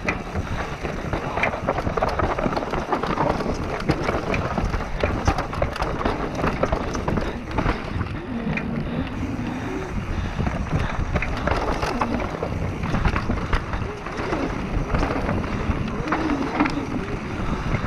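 Wind rushing over the camera microphone on a fast downhill mountain-bike run, with tyres on loose dirt and the bike rattling over bumps in many sharp knocks.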